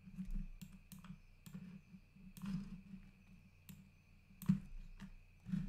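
Scattered, irregular clicks of a computer mouse and keyboard, about a dozen over a few seconds, faint over a low steady hum.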